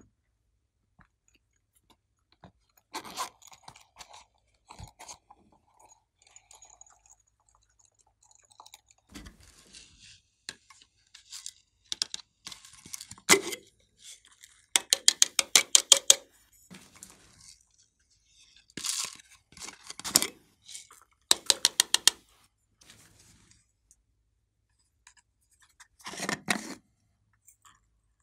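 Slime and clay being squeezed and pressed by hand, with sequins and glitter worked in. It makes separate bursts of crackling and quick trains of sharp clicks, about a dozen a second. The loudest click trains come around the middle of the stretch.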